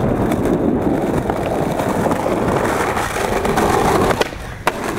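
Skateboard wheels rolling over stone paving tiles, a steady rumble that drops away about four seconds in, followed by a single sharp clack near the end.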